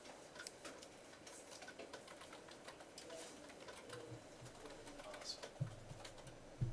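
Quiet classroom room tone with scattered faint clicks and taps, and two low thuds near the end.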